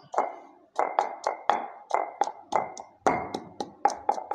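Wooden pestle pounding and grinding crushed almonds in a small stone mortar, about three sharp knocks a second, each with a short ring from the stone, as the nuts are worked into a paste.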